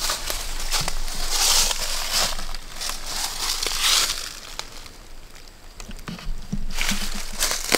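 Dry fallen leaves crunching and rustling in three or four bursts a couple of seconds apart, with small clicks and knocks between them.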